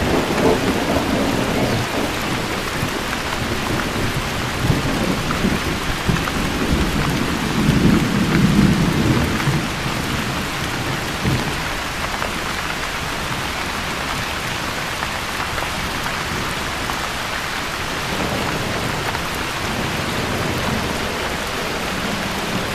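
Steady rain falling, with thunder rumbling at the start and again about eight seconds in, then fading away to leave only the rain.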